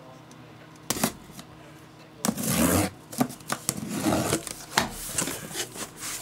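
Trading-card boxes and packs being handled and moved on a table: a sharp knock about a second in, then rustling and sliding with scattered taps.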